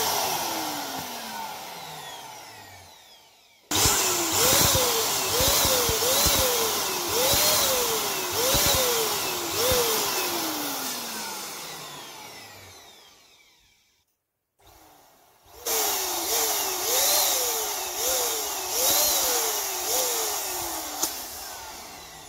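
Electric balloon pump inflating latex balloons: its motor starts suddenly, runs with its pitch repeatedly rising and falling, then winds down in a long falling whine. This happens twice, with a short silent gap between the runs.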